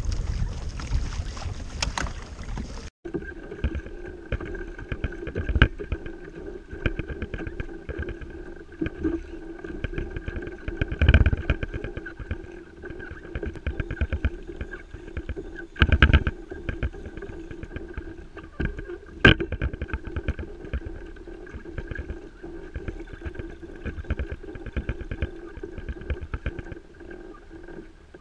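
Wind buffeting the microphone for the first few seconds. After a sudden cut, a steady whirring hum with fast fine ticking runs on, broken by a few sharp knocks.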